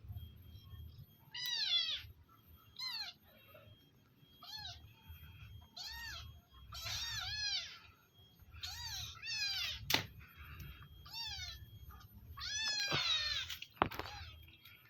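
Domestic cats meowing again and again, about a dozen short high calls, some overlapping, as hungry cats beg to be fed. Two sharp knocks come through, one about two thirds of the way in and one near the end.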